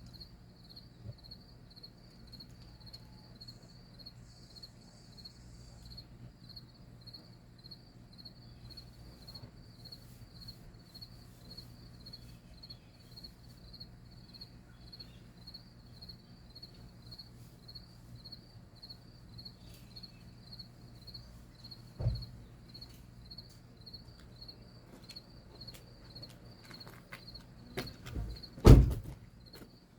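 Crickets chirping in a steady, even pulse, over a faint low hum. Two sharp thumps cut in, one about two-thirds of the way through and a louder one near the end.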